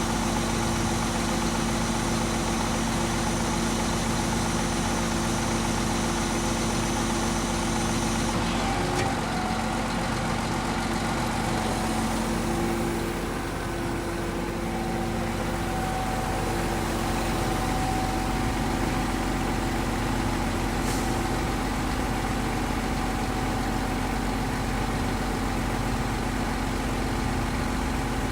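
Concrete pump's engine running steadily at a constant level, its tone shifting slightly about nine seconds in as a high whine drops out.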